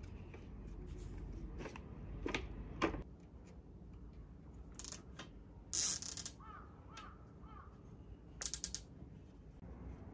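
Small plastic clicks, scrapes and rustles of hands fastening a plastic vine net to a plastic-coated garden stake and planter rim with ties. About eight and a half seconds in comes a quick run of ratchet-like clicks, as of a cable tie being pulled tight.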